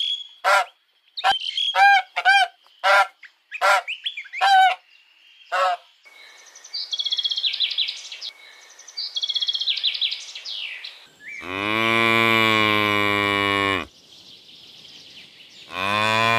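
A domestic goose honking in short repeated calls, then a European bee-eater's rolling trilled calls, then cattle mooing: one long moo about two-thirds of the way through and a second moo near the end.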